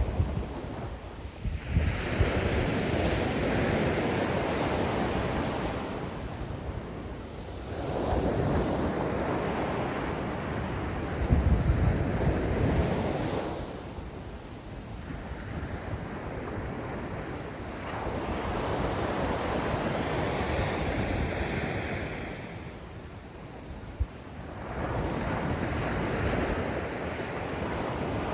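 Ocean surf breaking and washing up the beach, rising and falling in slow surges a few seconds long, about four of them. Wind buffets the microphone with a low rumble.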